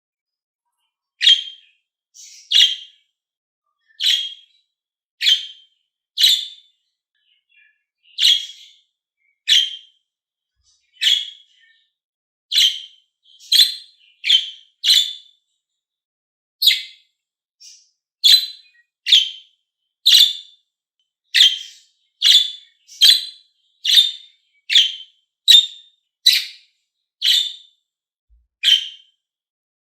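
A small pet parrot giving short, sharp, high chirps one after another, roughly one a second and coming a little faster in the second half.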